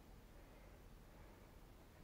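Near silence: a faint steady background hiss with a low rumble.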